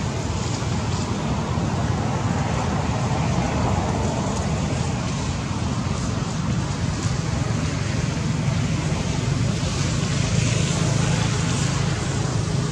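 Steady outdoor background noise: a low hum under an even hiss, with no distinct animal calls.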